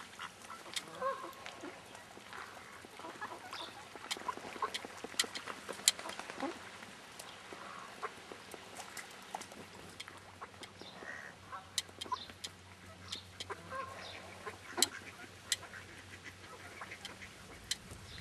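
Mallard ducks giving a few short, soft quacks, among scattered sharp clicks and rustles.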